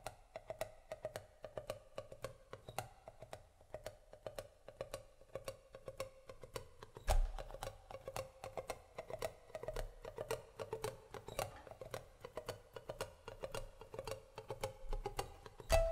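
Acoustic guitar played quietly with muted, percussive picking: a steady run of clicks about three or four a second over soft held notes. A louder low thump comes about seven seconds in and again at the end.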